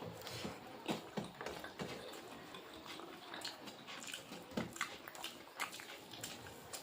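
Close-miked eating sounds: chewing and lip smacks, with irregular soft clicks and wet smacks throughout.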